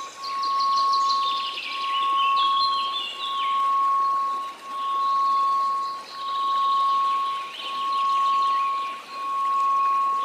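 Steady pure 1098 Hz tone swelling and fading about every second and a half, over faint white-noise hiss. Clusters of high chime notes tinkle over it, twice.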